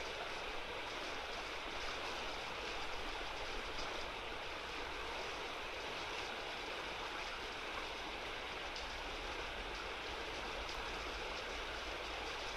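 Steady rush of running river water, even and unbroken.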